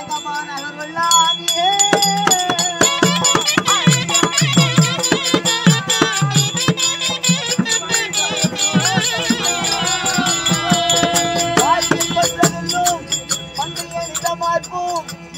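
Live folk-drama accompaniment: a barrel-shaped hand drum played in fast strokes with a jingling rattle, over a steady drone and a wavering high melody. The drumming starts about two seconds in and stops near the end, leaving the drone and melody.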